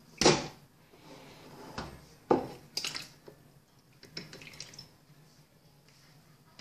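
Raw tuna cubes tipped from a plastic colander into a glass bowl of lime juice: a handful of separate knocks of plastic against glass and wet splashes as the fish drops into the juice.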